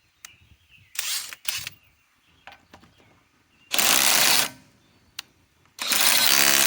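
RIDGID subcompact 1/2-inch right-angle impact wrench (R8721) run in bursts. There are two short blips about a second in, then two longer runs of hammering near the middle and at the end, each lasting under a second.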